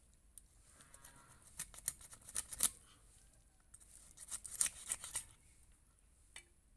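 Raw carp head being cut on an upright boti blade: two runs of quick crunching, scraping strokes as flesh and bone are worked against the edge, the first starting about a second and a half in and the second around four seconds in, then a single click near the end.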